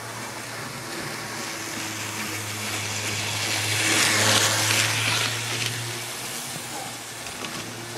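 Model train running on the layout's track: a steady low hum, with the rumble of wheels on rail swelling to a loud rush as the train passes close, about four to five seconds in, then fading. The hum stops about six seconds in.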